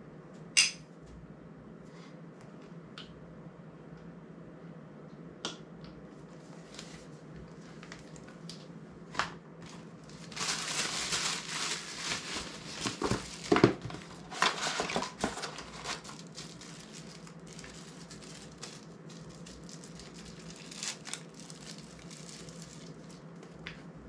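Small hard quick-release parts being handled: scattered single clicks and knocks, with a few seconds of close rustling and clattering from about ten seconds in as things are rummaged right by the microphone.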